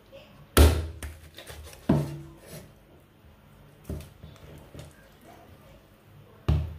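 Meat cleaver chopping through raw chicken onto a wooden cutting board: four heavy chops spread over several seconds, the first the loudest.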